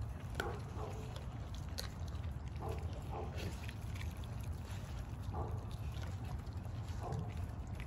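American bully dog chewing a raw whole chicken, with intermittent wet crunches and clicks every second or two over a steady low rumble.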